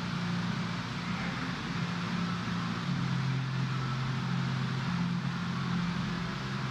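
Steady low mechanical hum with a hiss over it, like fans or air handling running in a large room. The hum's pitch drops slightly about three seconds in.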